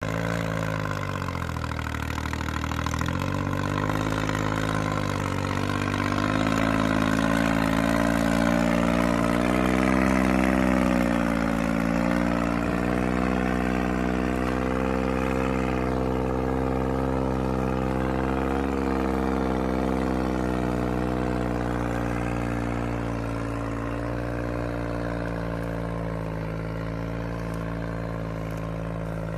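New Holland 5500 tractor's diesel engine working hard while pulling a heavy loaded trolley, its pitch dipping a few times in the first seconds, rising to its highest and loudest about ten seconds in, then settling and easing off slightly toward the end.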